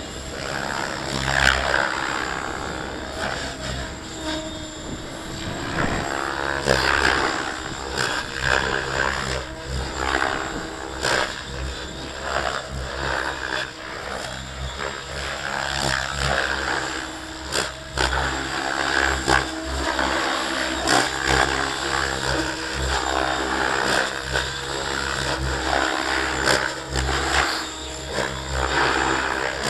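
Align T-Rex 700 radio-controlled helicopter flying, its rotor and motor sound rising and falling as it manoeuvres, with wind buffeting the microphone.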